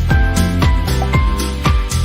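Background music with a steady beat, a note about every half second.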